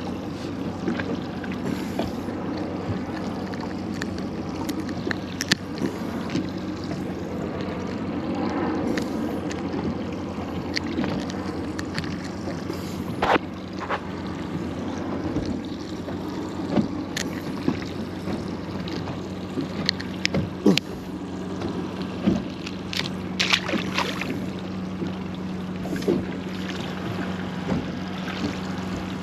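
Water lapping at a small fishing boat's hull, with a steady low hum throughout and scattered sharp clicks and knocks from handling the catch and tackle, more frequent in the second half.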